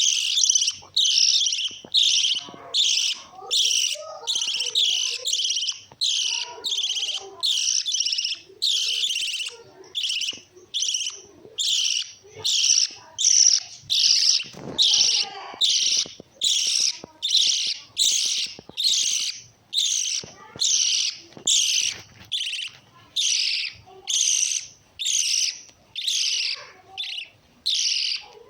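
Small pet parrots calling shrilly over and over, one short chirp after another at about one and a half a second.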